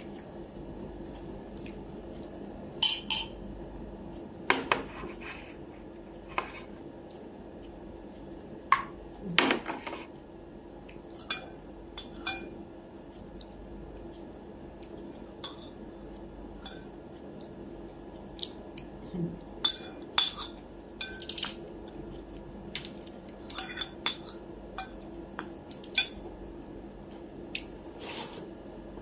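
Metal spoon and fork clinking and tapping against a ceramic dinner plate during a meal: scattered small clicks with a few louder knocks.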